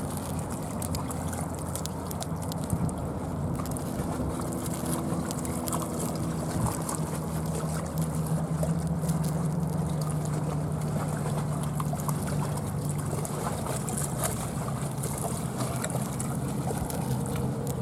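River water trickling at the shore under a steady low motor drone, like a boat engine passing on the river, that grows louder from about four seconds in.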